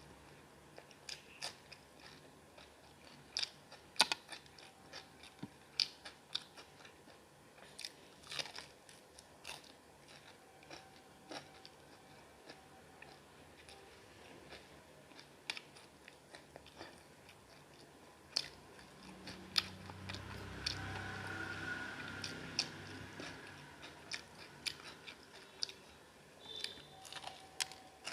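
Close-up chewing and biting into a masala chicken leg piece, with irregular crisp crunches and wet mouth sounds. A louder low rumble lasts a few seconds about two-thirds of the way through.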